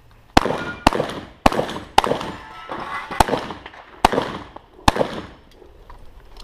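Seven gunshots fired in an uneven string, each with a short echo. The first four come about half a second apart, and the last three are more spread out.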